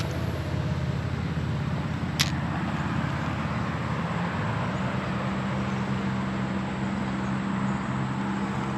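A steady low motor hum that shifts slightly in pitch about halfway through, with one sharp click about two seconds in.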